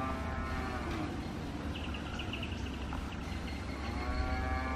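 An animal gives two long, drawn-out calls that rise and then fall in pitch, one at the start and one near the end. Between them comes a brief fast high trill, over a steady low rumble.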